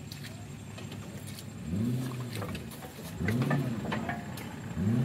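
Off-road 4x4's engine revving in three bursts, each rising then falling in pitch, as it struggles through deep mud.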